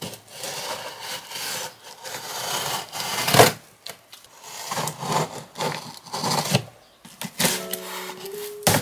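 Hands rubbing and scraping over a cardboard shipping box and its packing tape in a series of rasping strokes, with one loud sharp knock about three and a half seconds in. Near the end a box cutter scrapes at the tape, and soft music comes in.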